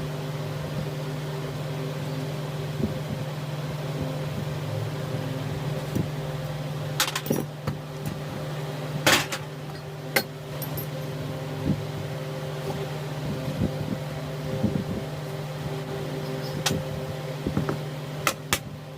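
A steady mechanical hum, with a handful of sharp metallic clicks and knocks at irregular moments, the loudest about halfway through, as parts and tools are handled during a starter motor repair.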